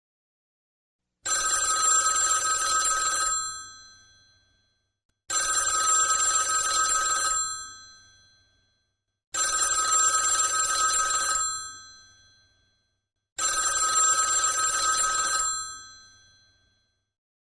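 Telephone bell ringing: four rings of about two seconds each, one starting every four seconds, each fading briefly as it stops.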